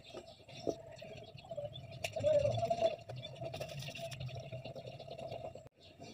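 Paper rustling and split firewood knocking as they are loaded into a metal-drum wood stove, a scatter of short knocks and rustles, busiest about two seconds in, over a steady thin background tone.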